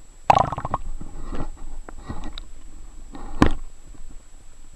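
Water gurgling and knocking around a submerged camera, heard through its waterproof housing. Irregular small clicks run throughout, with a louder splash-like burst about a third of a second in and a sharp knock about three and a half seconds in.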